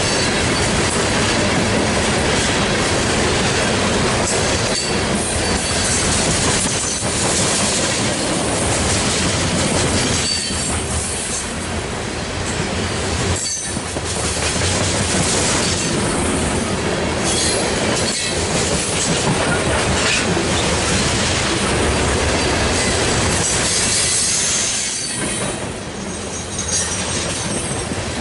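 Loaded coke hopper cars of a freight train rolling past: a steady rumble and clatter of steel wheels on the rails.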